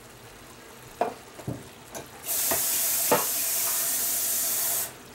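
A few light knocks, then a kitchen tap running a steady hiss of water for about two and a half seconds, likely filling a glass, before it is shut off suddenly.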